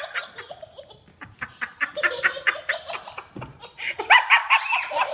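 Laughter: a rapid string of short ha-ha pulses that breaks off and starts again several times.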